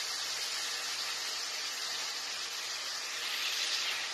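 Onion, ginger-garlic and spice masala sizzling steadily in a non-stick frying pan, with a little water just added to the hot oil. The sizzle swells slightly near the end.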